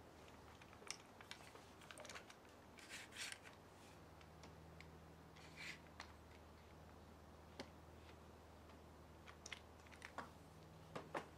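Quick-release bar clamps being handled and tightened on a wooden post: faint scattered clicks from the trigger mechanisms, with a few short scrapes of the clamps against the wood.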